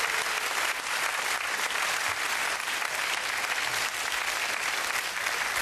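Studio audience applauding: dense, steady clapping from many hands.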